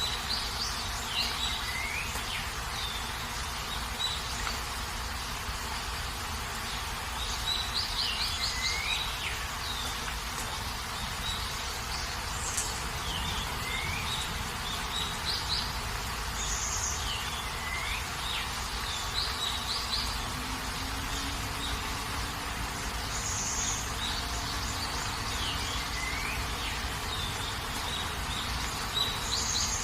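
Steady rain hiss with birds calling over it: short chirps, quick downward-sweeping notes and brief trills, the same call pattern repeating every few seconds.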